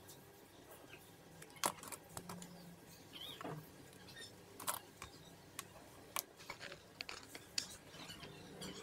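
Scattered light clicks and taps of a steel tape measure being handled and laid down on a plywood saw station, the sharpest about one and a half seconds in.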